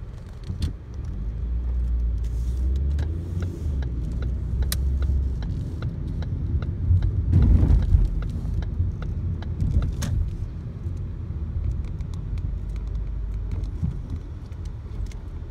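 Car driving and turning, heard from inside the cabin: a steady low rumble of engine and road noise that swells to its loudest about halfway through, with scattered light clicks and rattles.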